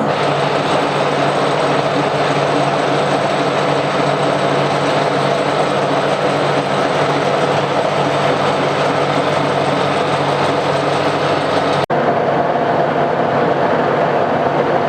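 Milling machine running steadily with its cutter spinning and the table feed shifted into a faster gear, a continuous mechanical hum and whirr. The sound drops out for an instant about twelve seconds in.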